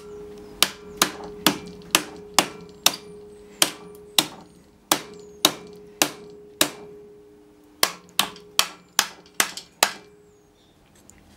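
Hammer blows on an arc welder's transformer secondary winding, about twenty sharp metallic strikes at two to three a second with a short pause midway, each leaving a brief ring. The winding is being knocked apart until it separates.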